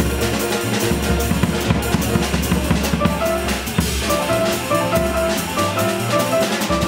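Jazz piano trio playing live: piano, plucked upright double bass and drum kit together, the drums keeping up a busy pattern under the bass line, with piano notes coming through more clearly about halfway through.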